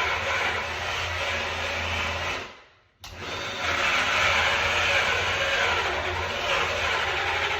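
Power drill spinning a 2-1/8-inch hole saw through a door to bore the doorknob hole. It runs steadily, winds down about two and a half seconds in, starts again abruptly half a second later, then runs until it winds down at the end.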